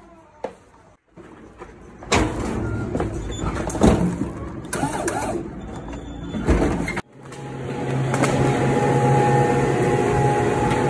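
Electric pallet jack running and rattling across the floor with clicks and knocks for about five seconds. It cuts off suddenly near the seven-second mark, giving way to the steady hum of the walk-in cooler's refrigeration fans, with a low steady tone and a higher one.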